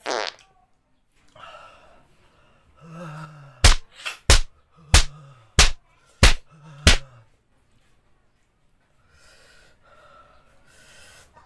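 A man reacting to the burn of hot red chilies: a sharp hissing intake of breath, then low groans broken by six sharp smacks a little over half a second apart, then heavy breathing near the end.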